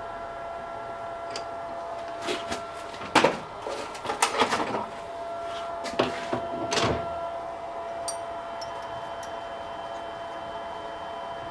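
Metal clinks and knocks as tooling is lifted off and fitted back onto a metal lathe's toolpost, clustered between about two and seven seconds in. A steady hum runs underneath.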